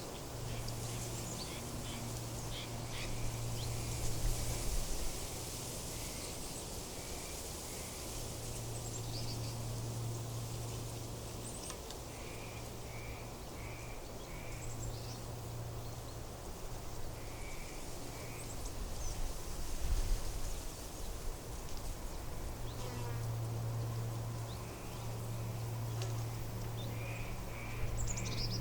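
Outdoor nature ambience: a low insect buzz that comes and goes every few seconds, with small birds chirping in short runs of a few notes over a soft steady hiss.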